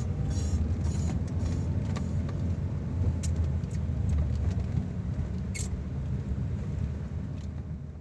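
Road and engine rumble heard from inside a moving Toyota car, with a few light clicks or rattles, fading out near the end.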